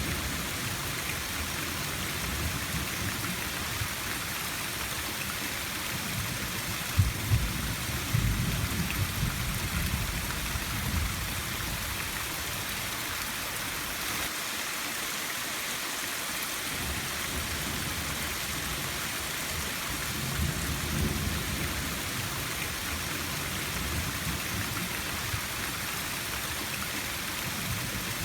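Steady heavy rain hissing down, with a low rumble underneath that swells and fades, dropping away briefly around the middle. There are a couple of sharper spikes about seven and eight seconds in.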